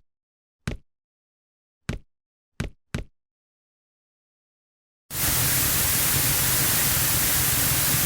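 Five single footsteps at uneven spacing in the first three seconds, with dead silence between them. About five seconds in, a loud, steady rushing noise with a low rumble underneath cuts in abruptly and holds.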